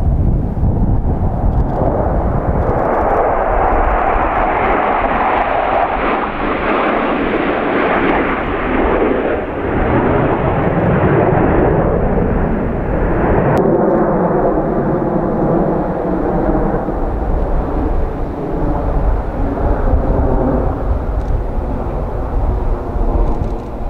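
Loud, continuous jet roar of a six-ship formation of Lockheed F-16 Fighting Falcons flying past overhead, swelling through the first half and shifting abruptly a little past halfway.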